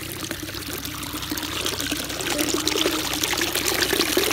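Water running through a gap in a mud paddy-field bund, pouring and splashing as a small cascade into the flooded field below. It gets a little louder about halfway through.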